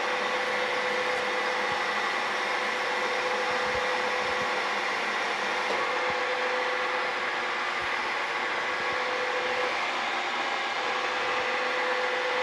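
Vertical milling machine running steadily with a 1/4-inch drill bit in its spindle: an even mechanical hum with a steady tone in it that drops out briefly about ten seconds in.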